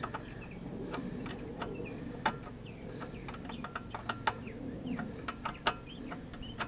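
Scattered light clicks and ticks, irregular and sharp, from hands and tools working around a lawnmower carburetor.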